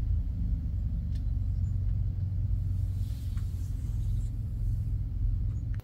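A steady low rumble with a few faint ticks over it.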